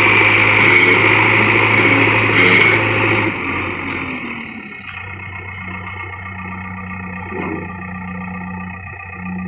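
JCB 3DX backhoe loader's diesel engine running, loud and steady for about three seconds, then dropping suddenly to a quieter, steady sound with sustained tones.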